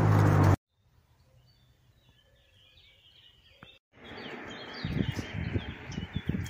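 Small birds chirping in the background, faint at first and louder from about four seconds in, after a loud steady low hum that cuts off abruptly about half a second in. In the last couple of seconds a horse's hooves thud irregularly on the dirt.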